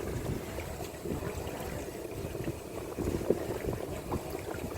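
Steady low rumble and water wash of a small fishing boat at sea, with wind on the microphone and a few scattered light knocks.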